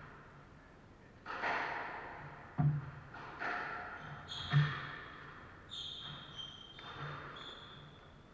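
A squash rally: the ball is struck by rackets and smacks off the court walls about four times, sharp echoing cracks with the loudest about two and a half and four and a half seconds in. Court shoes squeak on the wooden floor in the second half.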